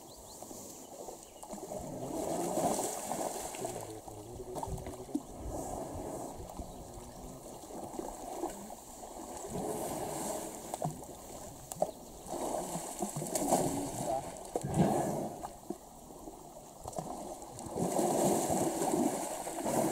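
Muddy pond water sloshing and splashing in swells every few seconds as an elephant lying in the shallow water stirs and sprays, and men wade around it.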